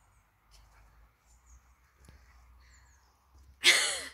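A person's short, loud yell about three and a half seconds in, over faint birdsong.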